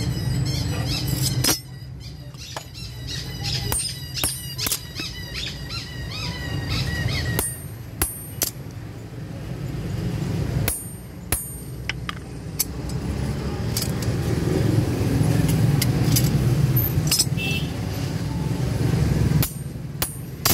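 Hand hammer striking a hot steel knife blade on an anvil: sharp blows at irregular intervals, over a steady low rumble.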